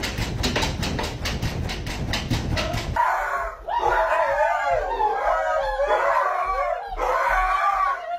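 For about three seconds, a rapid, even knocking at about five strokes a second, as a large dog paws at a glass door. After that, dogs howl in long wavering calls, four stretches of it, with the last ending near the end.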